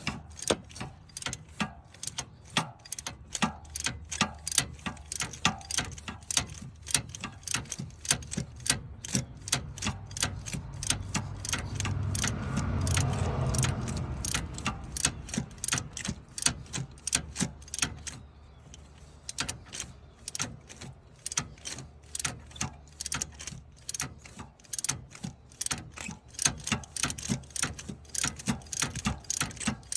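Socket ratchet clicking in a long run of repeated strokes as a tight spark plug, just broken loose, is backed out of the engine. A louder stretch of low rumbling noise comes around the middle.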